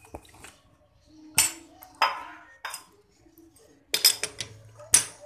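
A handful of sharp metal-on-metal clinks, each with a brief ring, as a lathe's three-jaw chuck is loosened with its chuck key to release a freshly turned stainless bolt. The loudest clink comes near the end.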